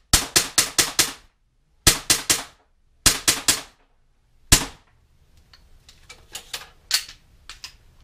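Umarex Smith & Wesson M&P 40 CO2 blowback BB pistol firing: a rapid string of about six sharp cracks, then two strings of four, then a single shot about four and a half seconds in. Fainter scattered clicks follow in the last few seconds.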